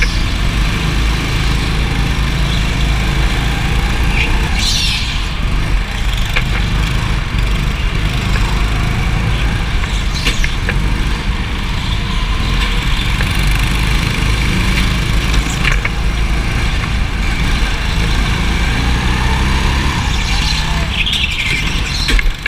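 Rental go-kart engine running hard under the seat, heard from the kart itself as it laps, with a steady low rumble. Tyres squeal briefly in corners, about four seconds in and again near the end.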